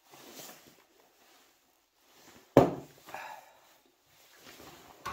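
Metal parts handled on a workbench while a modulator chassis is taken apart: faint handling noises, then a single sharp clattering knock about halfway through.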